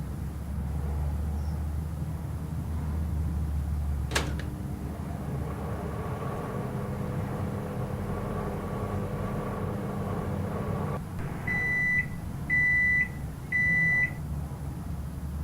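Microwave oven: a click about four seconds in, then the oven running with a steady hum for about seven seconds until it stops, followed by three beeps signalling the end of the heating cycle.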